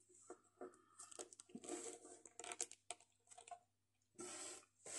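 Faint handling noises of a plastic action figure as a small pistol accessory is fitted into its hand: scattered small clicks and rustles, with a brief soft hiss near the end.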